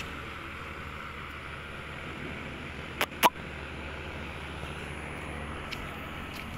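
Steady street ambience with distant traffic. About three seconds in come two sharp clicks, a third of a second apart.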